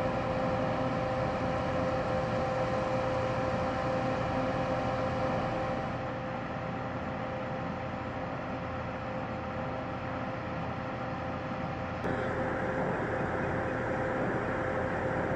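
Aircraft engine noise on the ground: a steady drone with a constant high whine, changing abruptly twice, about 6 and 12 seconds in.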